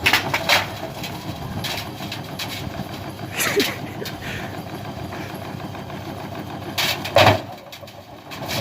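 Washing machine running with a steady motor-like drone, broken by several loud bangs and knocks from the drum, the heaviest about seven seconds in.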